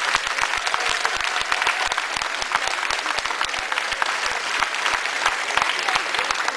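Audience applauding: a large crowd clapping steadily, dense and continuous.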